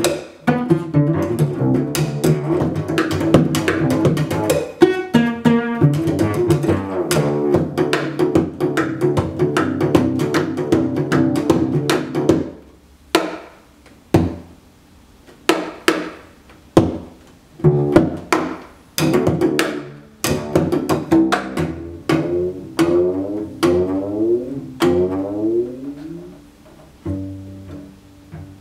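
Cello played pizzicato, its strings plucked by hand. A dense, fast passage of plucked notes runs for about the first half, then thins into separate plucks roughly a second apart, each left to ring out.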